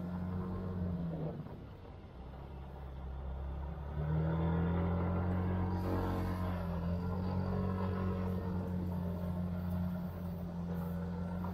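Scooter's single-cylinder engine running under way. The engine note eases off about a second in, then the throttle opens again about four seconds in and it runs steadily at a higher level.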